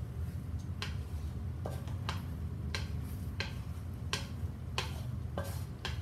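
Wooden spatula knocking and scraping against a wok while stirring scrambled eggs, in regular strokes about one and a half times a second, over a steady low hum.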